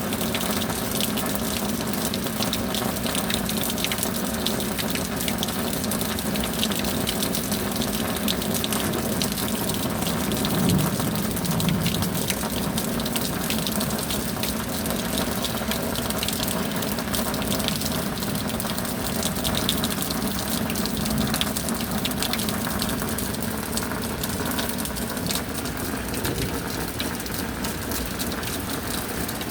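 Heavy rain falling steadily, a dense, even wash of splashing water with a slight swell about ten seconds in.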